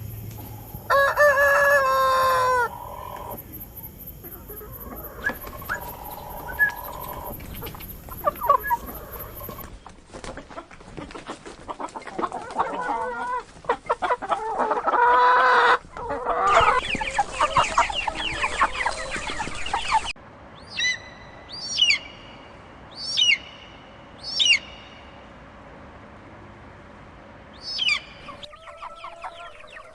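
Chickens clucking and a rooster crowing, in short edited stretches, with a dense run of clucking in the middle. Near the end come four short, sharply falling bird calls about a second apart, then one more.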